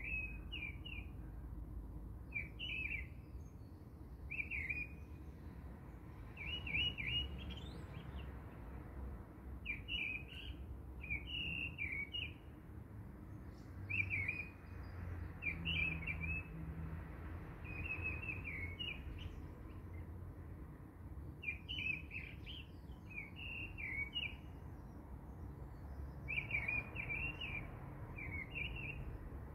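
A small bird chirping over and over, short high chirps in little groups every second or two, over a low steady hum.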